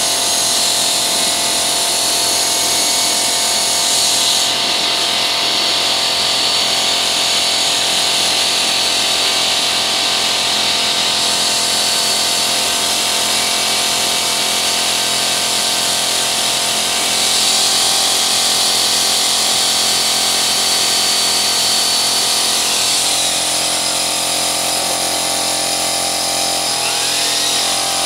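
Electric drill with a paddle mixer running steadily, stirring cement slurry while foam is fed in to make cellular concrete, with a steady high hiss alongside.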